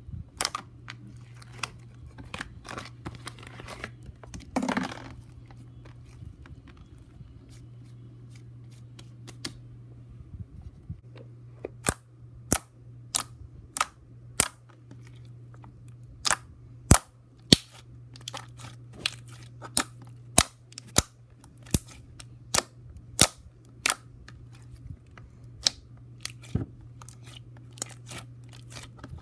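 Thick, glossy slime being poked and squeezed by hand, its trapped air popping in sharp clicks, few at first and then many in quick irregular succession through the second half. A steady low hum runs underneath.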